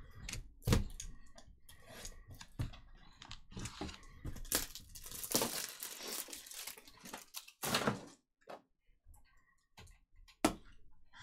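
A trading-card box being opened by hand: clicks and taps of cardboard and a box-cutter blade, a longer stretch of tearing and scraping cardboard around the middle, then a stack of cards sliding out, with one sharp click near the end.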